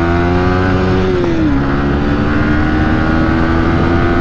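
Yamaha MT-15's 155 cc single-cylinder engine accelerating hard. Its pitch climbs, dips sharply about a second and a half in as the rider shifts up a gear, then holds steady under load.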